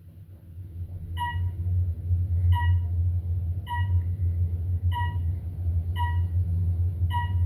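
Elevator car running upward: a low rumble builds as the car gets up to speed, and a short electronic beep sounds about every 1.2 seconds.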